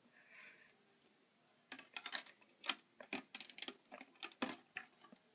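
Plastic Lego bricks handled and pressed together, giving faint, irregular clicks and clacks that begin a couple of seconds in.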